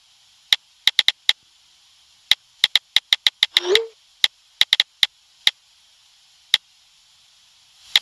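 Sharp, irregularly spaced clicks from the Jeep's electrical system with the engine not running, with one short rising tone about four seconds in. This is a symptom of a crank/no-start fault that the owner suspects could be a fuse-system issue.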